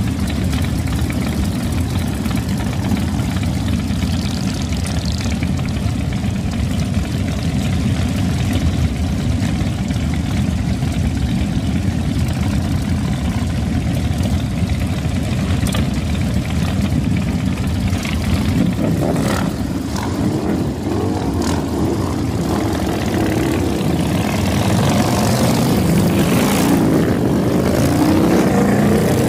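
A pack of V-twin cruiser motorcycles running together in a steady low rumble. From about three-quarters of the way in it grows louder as bikes rev and ride past, their pitch rising and falling.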